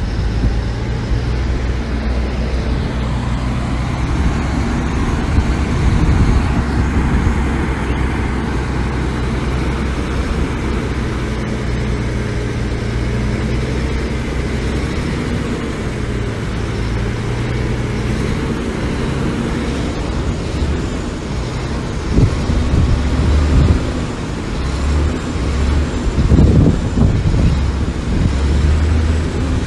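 Heavy diesel construction machinery running: a steady low engine drone that grows louder and more uneven about two-thirds of the way through.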